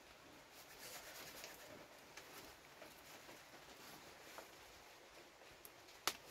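Near silence with faint rustling and scattered light clicks, and one sharp click near the end.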